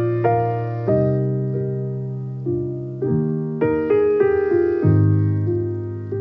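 Background piano music: a slow melody of struck notes that fade, over held bass notes.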